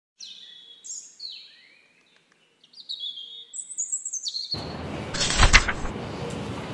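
Birds singing clear whistled phrases that step and glide in pitch. About four and a half seconds in, this gives way abruptly to a steady rushing noise, with a loud knock about a second later.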